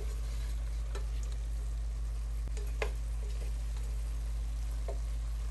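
Chicken pieces, peas and olives sizzling lightly in a stainless steel pot as a nylon spoon stirs them, with a few light clicks of the spoon against the pot. A steady low hum runs underneath.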